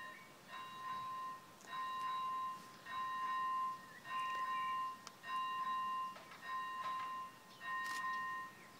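Railway warning bell ringing in a steady rhythm, about one ring a second, each ring held for most of a second before a short gap. Lineside warning like this signals that a train is approaching.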